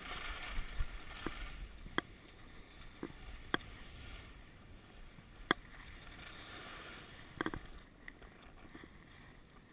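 Skis sliding and scraping over packed snow, a steady hiss that eases after about two seconds, with sharp clicks and knocks scattered through it and a quick cluster of them about seven and a half seconds in.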